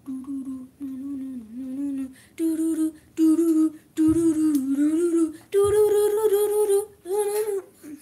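A boy humming a short tune in separate notes. The notes step up in pitch and grow louder about two and a half seconds in.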